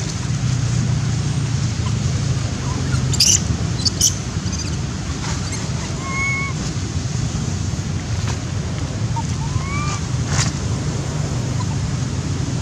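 Steady low rumble of wind buffeting the microphone, with a few short high chirps and a few sharp clicks on top.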